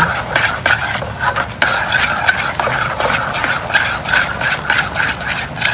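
A utensil stirring and scraping in a pan of boiling sugar syrup, with irregular scraping strokes over the bubbling. The syrup is being cooked down over medium heat toward the soft-thread stage.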